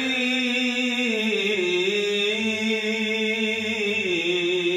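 A man reciting the Quran in the melodic tajwid style, holding one long ornamented vowel through the whole breath. The held note steps down in pitch about a second in and again near the end.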